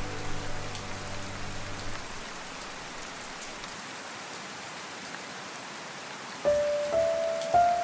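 Steady rain pattering, with soft low music fading away in the first two seconds. About six and a half seconds in, jazz piano comes in with three notes, each one a step higher, louder than the rain.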